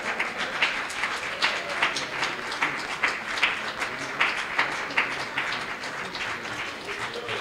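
Audience applauding: many hands clapping steadily, easing off a little near the end.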